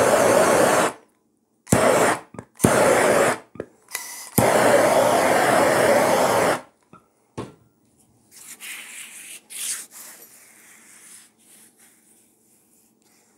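Handheld gas torch flame hissing in four bursts over the first seven seconds, the last about two seconds long, as it singes frayed fibres off the edge of a nylon scuba-webbing belt.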